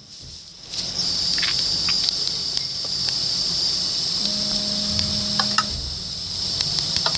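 Steady, high-pitched chirring of insects, starting about a second in after a brief near-silent gap, with a short low hum about two thirds of the way through.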